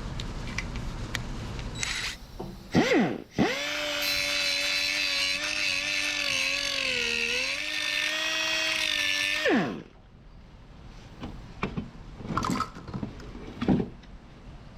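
Electric drill blips once, then spins up and runs steadily for about six seconds, its pitch dipping briefly under load, before winding down. It is driving a sealant-coated threaded repair pin into a cracked engine block. A few light clicks and knocks follow.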